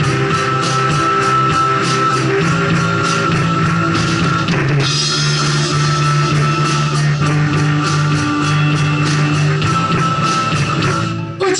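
Rock band playing live: drum kit keeping a steady beat under bass guitar and electric and acoustic guitars, with held lead-guitar notes and a cymbal crash about five seconds in. The music dips briefly near the end.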